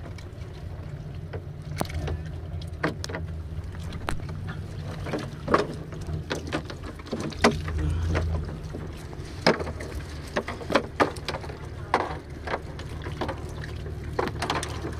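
Wet nylon cast net being handled and picked over for fish on a boat deck: irregular clicks and rustles, over a steady low hum of the boat's engine.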